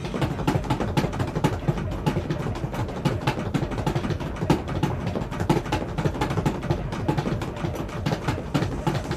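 A vehicle engine running, with a dense, uneven stream of sharp cracks over a low rumble.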